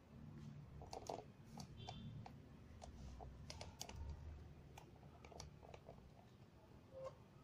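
Faint, scattered light clicks, a few a second and irregular, over a low rumble; otherwise near silence.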